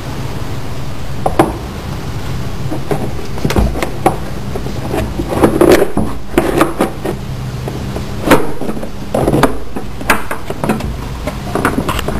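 Air filter assembly of a C5 Corvette being pushed and fitted back into place: irregular knocks, clicks and short scrapes, busiest about halfway through, over a steady low hum.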